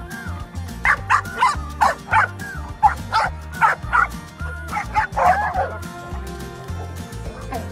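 Several dogs barking and yipping excitedly in quick, short barks over background music. The barking comes thick from about a second in and dies away a little past halfway.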